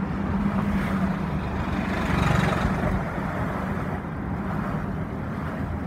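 Steady motor vehicle running noise with a low engine hum, swelling briefly about two seconds in.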